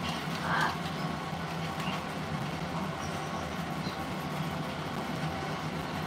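Steady low hum in a parrot room, with one short parrot squawk about half a second in and a few faint high chirps later.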